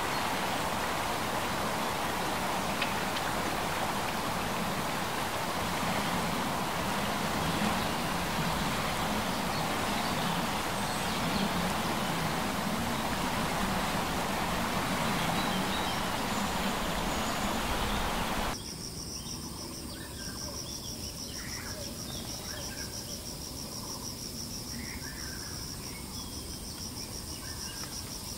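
A dense, even hiss for about the first eighteen seconds, then an abrupt cut to a quieter scene: a cricket's steady, fast-pulsing high-pitched trill, with short chirps scattered through it.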